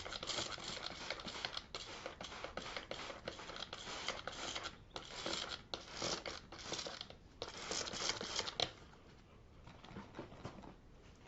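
Car seat cover being scrubbed in quick back-and-forth strokes, a scratchy rubbing hiss that comes in short bursts and stops about nine seconds in.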